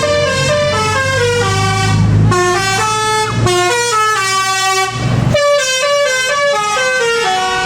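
Indonesian tour bus's telolet musical air horn playing a loud stepped melody, one held note after another, over the low rumble of the bus's engine, which fades about five seconds in.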